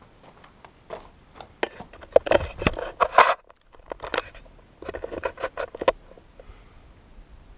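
Footsteps crunching and scuffing over a dirt floor littered with straw and debris, in two loud stretches of close crackling about two and five seconds in, with single clicks between.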